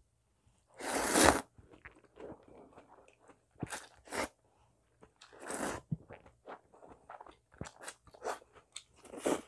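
A person slurping thin wheat noodles in broth, close to a clip-on mic. There is a long loud slurp about a second in and shorter slurps around four and five and a half seconds, then a quick run of short chewing sounds near the end.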